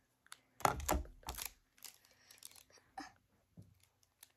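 Foil wrapper of a Pokémon trading-card booster pack crinkling and tearing as it is opened. There are two loud rustling bursts about a second in, then scattered quieter crackles.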